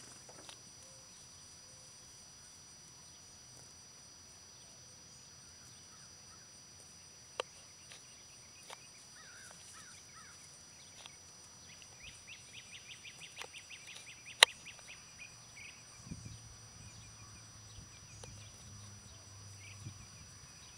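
Faint outdoor ambience: a steady high hiss, a few scattered sharp clicks with one loud click about fourteen seconds in, and a short run of rapid ticks, about eight a second, from about twelve seconds in.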